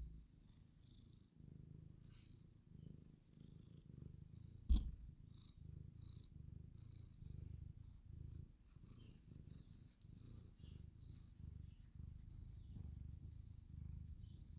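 Tabby cat purring contentedly, a faint low rumble that comes in short repeated pulses, with one sharp thump about five seconds in.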